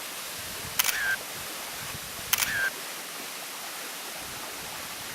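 Waimoku Falls' steady rushing roar at its base, with two sharp clicks about a second and a half apart, each followed by a brief chirp-like tone.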